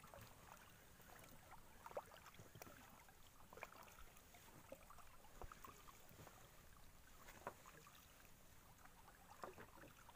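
Faint sounds of paddling a small boat: light knocks and water dips, the clearest about every two seconds.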